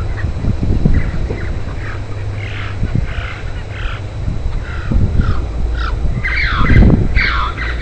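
Bird calls: a quick series of short notes, each falling in pitch, growing louder and denser in the last couple of seconds, over a steady low rumble.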